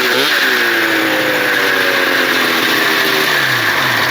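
Snowmobile engine running just after being fired up on new spark plugs, a swapped plug cable and a carb cleaning. The revs wobble near the start, then slowly drop.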